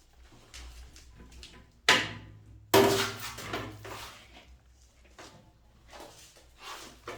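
Hard knocks and clatter of toilet parts being fitted into place: lighter clicks, then two sharp knocks about a second apart, the second ringing on briefly.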